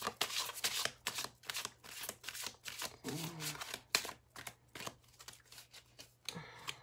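A deck of oracle cards being shuffled by hand, in quick runs of card-on-card flicks separated by short pauses.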